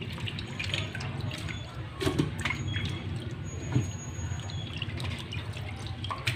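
A hand swishing and rubbing raw food pieces in a metal bowl of water in a sink: water sloshing, splashing and dripping, with a few light knocks against the bowl.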